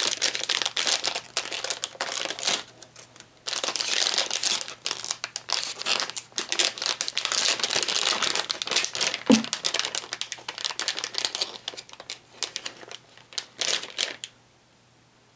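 Clear plastic lure packet crinkling and rustling in the hands as it is handled and pulled open, pausing briefly about three seconds in and stopping near the end.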